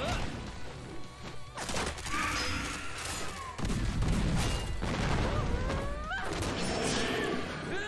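Animated battle sound effects, gunfire and blasts with impacts, over a music track.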